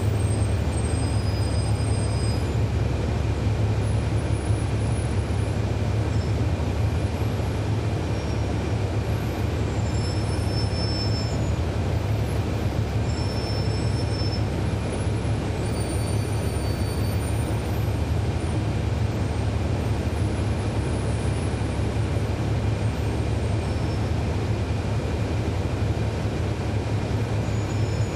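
Cummins ISL9 inline-six diesel of a 2011 NABI 40-SFW transit bus running at a steady note, heard from inside the passenger cabin as a constant low drone with a faint steady high whine. A few brief high squeaks come now and then.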